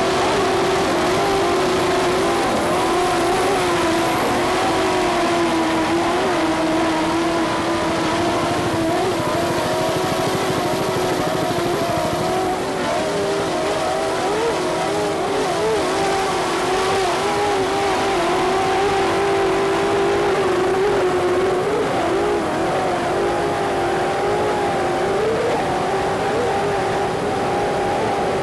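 Offshore racing catamaran's engines running at full race speed, a steady high drone whose pitch wavers slightly up and down as the boat skips across the water.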